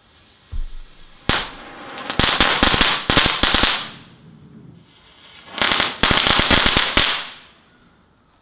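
Small consumer firework going off: a faint hiss and a low thud, then two runs of rapid crackling pops, each lasting about two seconds with a pause between.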